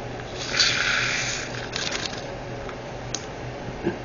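Tiny plastic diamond-painting drills poured from their bag into a small storage container: a brief hissing rattle about half a second in, followed by a few light clicks.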